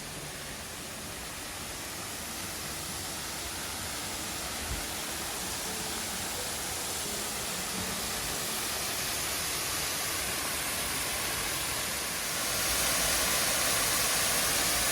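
A waterfall about 36 feet high at low flow, its falling water making a steady rush that grows louder as it is approached and jumps up sharply near the end.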